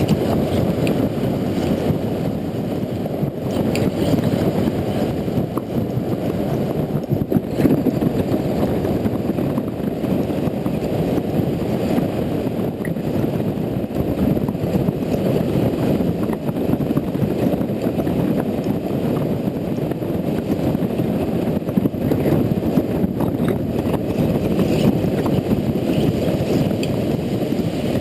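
Steady low wind rush on an action camera's microphone while riding a motorcycle at speed, mixed with the bike's road noise.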